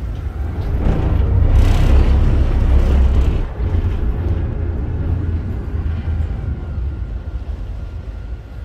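Wind buffeting the microphone over the low rumble of a river cruise boat under way. It swells about a second in and eases after about three and a half seconds.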